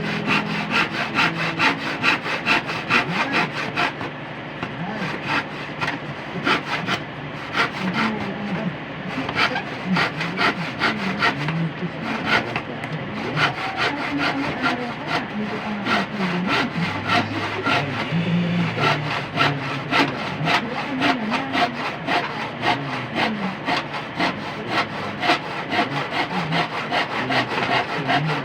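Hand saw cutting through wood in quick, even back-and-forth strokes, about three to four a second.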